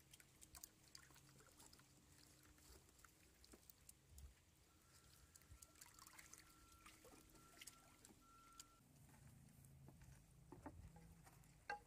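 Near silence: a faint low rumble with scattered small clicks and taps.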